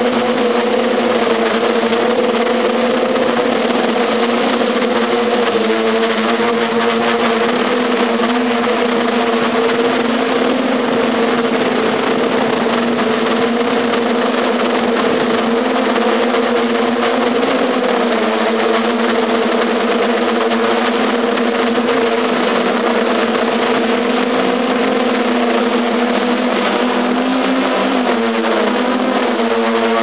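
Hexcopter's electric motors and propellers humming steadily in flight, heard through its on-board camera's microphone, with a steady rush underneath. The pitch wavers as the motors change speed in strong wind, most clearly near the end.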